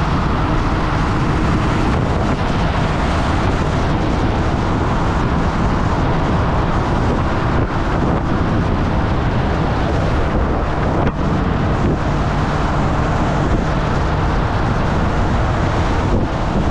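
Honda CB400 Super Four's inline-four engine running at a steady cruise, mixed with heavy wind rush on the microphone.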